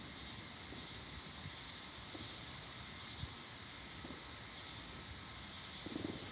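Steady, unbroken high-pitched chorus of night insects such as crickets.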